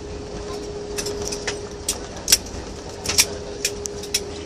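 Cabin noise of an airliner on its landing roll: a steady rumble with an even hum, broken by irregular sharp rattles and clicks of cabin fittings as the plane runs along the runway.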